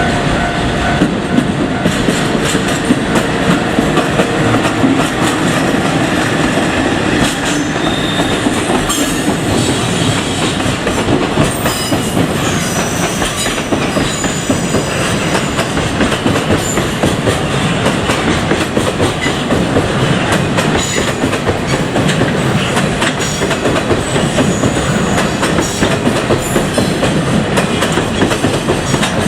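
Loaded container wagons of a long freight train rolling past close by: a steady rumble and clatter of steel wheels over the rail joints, with short thin high wheel squeals here and there.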